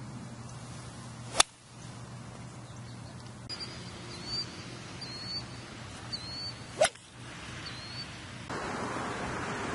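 Two golf shots, each a single sharp crack: a driver striking a ball about a second and a half in, then an iron striking a ball about seven seconds in.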